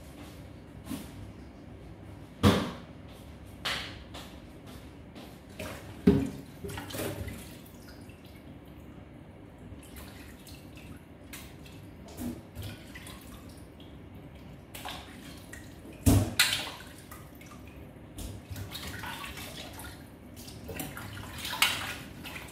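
Hands washing something in a metal basin in a stainless steel sink: water splashing and dripping, with a few sharp knocks and clatters of the basin and kitchenware, the loudest about 2.5, 6 and 16 seconds in.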